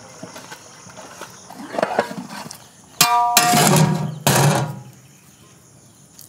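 A metal lid being set onto a large cooking pot: a ringing clang about three seconds in, followed by two louder rasping noises as it settles into place.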